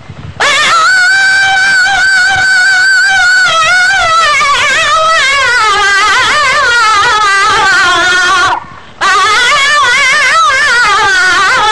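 A singer's voice in a Sindhi molood (devotional song), holding long high notes with a fast waver, the pitch slowly sinking over several seconds. It breaks off for a breath about two-thirds of the way through, then comes back on another held, wavering note.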